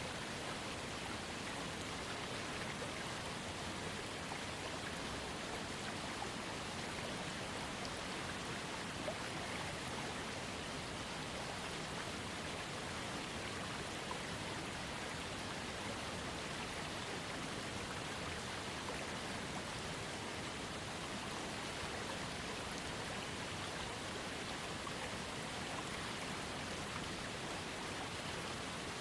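A waterfall and a trickling creek: steady, even rushing and splashing of water.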